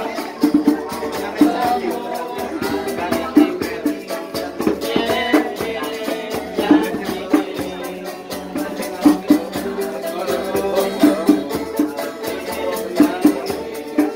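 A street band playing live music, with a shaker keeping a fast, even rhythm over the other instruments.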